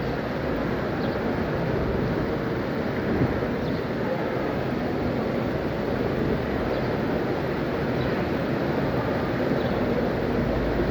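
Heavy rain falling steadily, a dense even rush with a few faint drop ticks.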